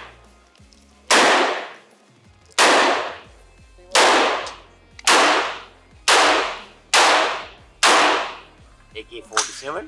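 Rifle gunfire: seven single shots, one every one to one and a half seconds, each a sharp crack with a short reverberating tail.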